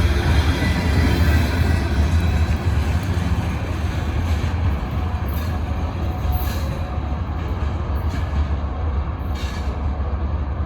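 Freight train cars rolling past on the track: a steady low rumble of wheels on rail, with a few brief sharp sounds from the cars near the end.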